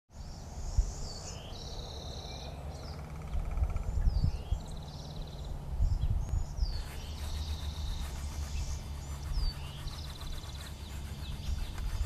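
Songbirds singing in woodland, with repeated trills and quick high slurs one after another. Under them runs an uneven low rumble with a few soft thumps.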